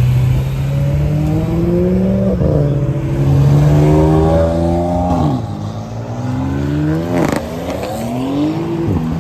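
BMW M3 sedans accelerating hard away from the meet. The engine note climbs in pitch and drops sharply at upshifts about two and a half, five and nine seconds in, with a sharp crack about seven seconds in.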